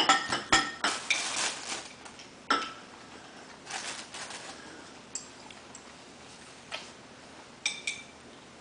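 Spoons and forks clinking against ceramic plates and bowls: a quick run of clinks in the first second, a few single clinks, and another short cluster near the end.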